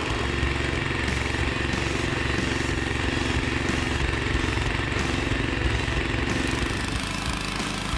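Small gasoline engine of a Tilmor Power Ox two-wheel tractor running steadily under load as the machine cultivates crop rows.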